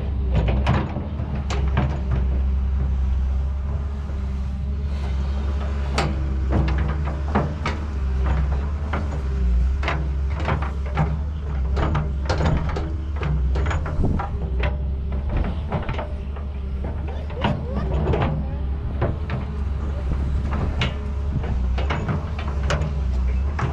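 Excavator running with a steady low engine hum, with frequent short knocks and clanks throughout as it works.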